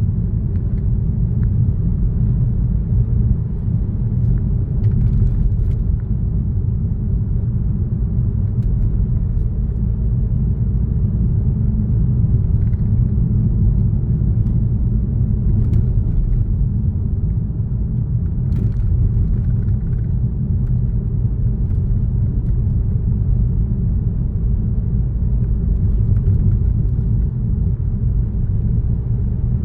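Steady low road rumble of a car driving, with a few faint ticks now and then.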